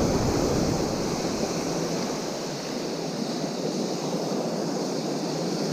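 Ocean surf washing steadily onto the beach, an even rushing noise with no distinct breaks.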